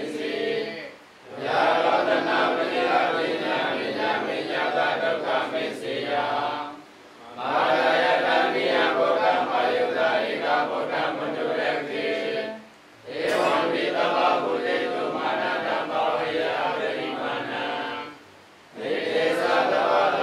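A group of Theravada Buddhist monks chanting Pali verses together in unison. The chant stops briefly for a breath about every six seconds, four times.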